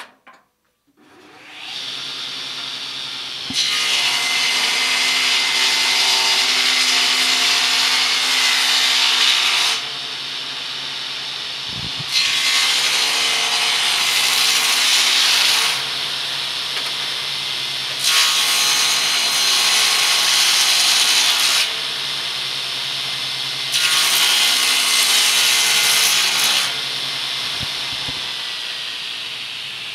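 Electric bench circular saw (ripping saw) starting up and running. It rips a wooden plank in four passes: each cut is louder and rasping, and the blade spins freely between cuts. Near the end it fades and drops in pitch as it slows.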